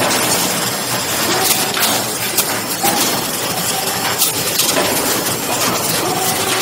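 Industrial production machine running: a steady loud mechanical din with repeated sharp clacks from its moving parts at uneven spacing.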